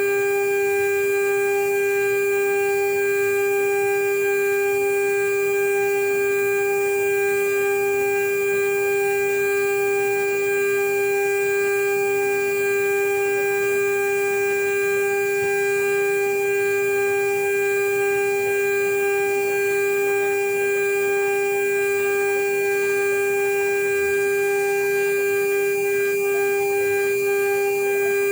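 CNC router spindle running at a constant speed, a steady unbroken whine with several overtones, while milling a marine aluminum seal plate.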